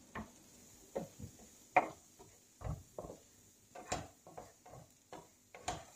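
Wooden spatula stirring chopped onion and flour in butter in a nonstick frying pan: irregular light knocks and scrapes of wood against the pan as the flour is lightly fried.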